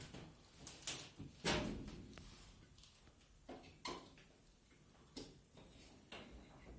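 A few separate clicks and knocks of things being handled, the loudest about a second and a half in, with softer ones later.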